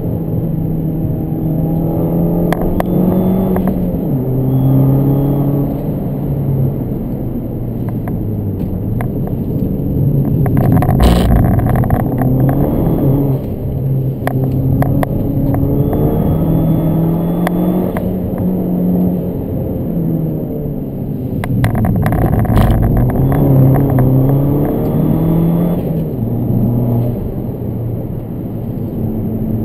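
Fiat Abarth 500's turbocharged 1.4-litre four-cylinder engine, heard from inside the cabin, pulling hard and rising in pitch, then dropping back with each gear change, over and over.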